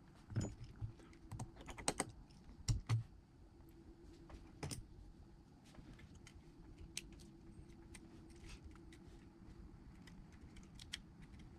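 Small repair tools and phone parts clicking and tapping irregularly on the iPhone's rear housing as a charging-port flex assembly is fitted, with a few louder taps in the first five seconds, over a faint steady hum.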